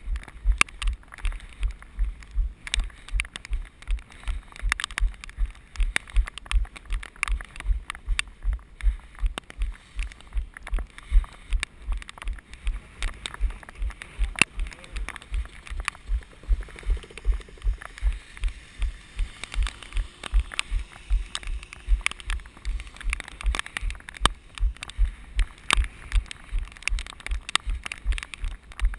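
A runner's footfalls at a steady stride of nearly three steps a second, each landing a low thud with a sharp click as the body-worn camera jolts.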